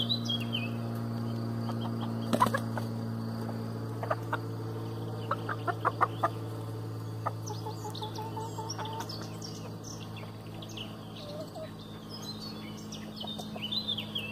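A flock of hens clucking, with short scattered calls and a quick run of clucks a little past the middle. Small birds chirp at the start and again near the end, over a steady low hum.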